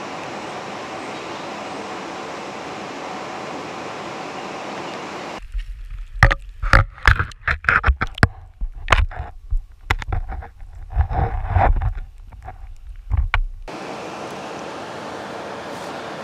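Steady rushing of river water, then, from about five seconds in, the microphone goes underwater: a muffled low rumble with irregular gurgling, bubbling and knocks, until it comes back up near the end to the plain rushing water.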